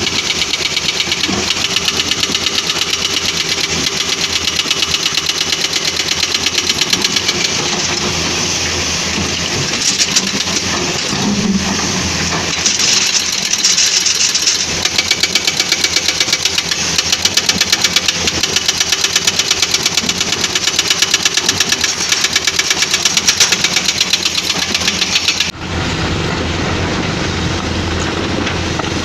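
Diesel engine of a Caterpillar 320D hydraulic excavator running under load with a steady rapid clatter. The sound changes abruptly near the end.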